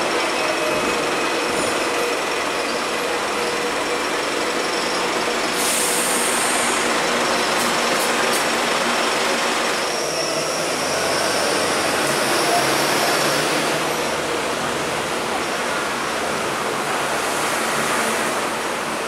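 Hong Kong double-deck electric tram running along the street, heard from the upper deck: a steady rumble of the wheels on the rails and the car body rattling, with a brief high hiss about six seconds in.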